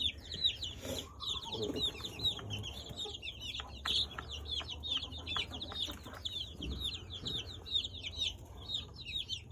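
A brood of baby chicks peeping constantly, many high, quick chirps overlapping, with a few light clicks about four to six seconds in.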